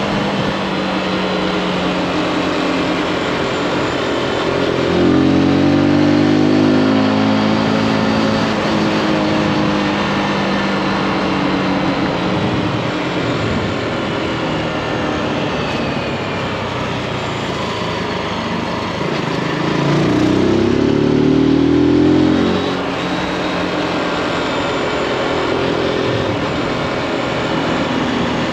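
Zontes G1 (G155) single-cylinder four-stroke engine running under way, with wind noise. Its pitch rises and falls back twice, about five seconds in and again about twenty seconds in, as the throttle opens and closes.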